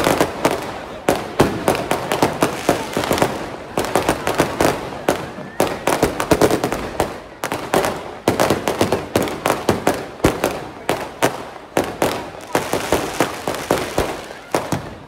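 Fireworks going off in quick, irregular volleys of sharp cracks and bangs, several a second, with crowd voices beneath.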